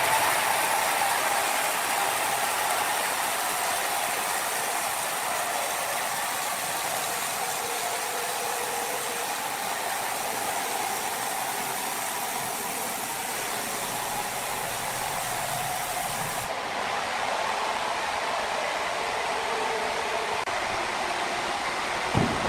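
Sawmill saw running steadily with a hiss. The highest part of the hiss drops away about two-thirds of the way through.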